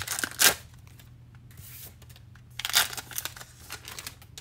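Foil baseball card pack wrappers being torn open and crinkled, in two spells: one at the start and another about three seconds in.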